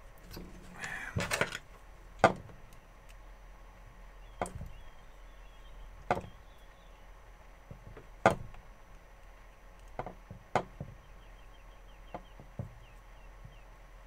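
Sharp knocks and clicks of a circuit-board panel, parts and hand tools being handled and set down on a workbench: a short rustle about a second in, then about eight separate knocks spread a second or two apart, the loudest a couple of seconds in and another about eight seconds in.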